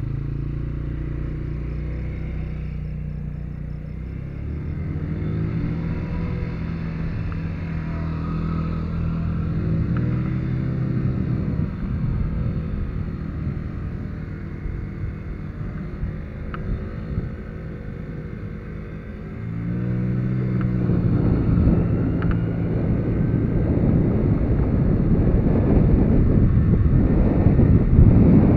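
Mondial 50 Revival 50cc moped engine running under way, its pitch rising several times as it accelerates through the gears or throttle. In the last third, wind rushing over the microphone grows louder as speed builds.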